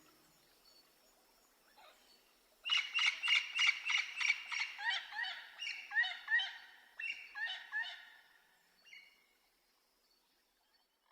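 A bird calling in a rapid series of short, pitched chirps, about four or five a second, that slow and fade away after several seconds.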